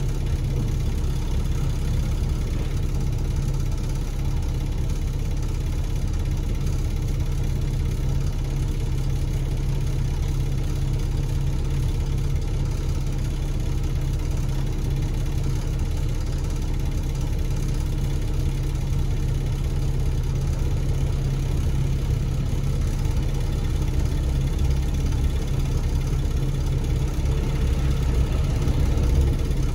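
Diesel engine of a KMB Alexander Dennis Enviro500 double-decker bus, heard from inside the passenger cabin. It runs with a steady low hum and gets a little louder over the last few seconds.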